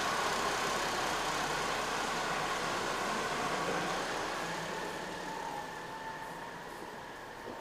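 Massey Ferguson 3125 tractor's diesel engine running as the tractor drives away, growing steadily fainter.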